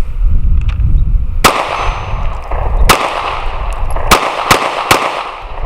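Walther PPS M2 9mm compact pistol firing five shots: two spaced about a second and a half apart, then three in quick succession, each with a short echo.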